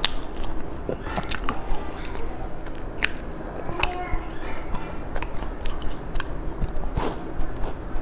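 Close-miked chewing and biting of a sesame-coated pastry, a steady run of small crunches and mouth clicks.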